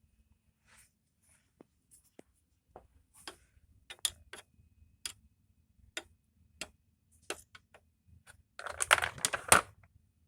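Light clicks and taps of plastic doll toys being handled and moved, scattered irregularly, then a short burst of rattling and clattering about nine seconds in.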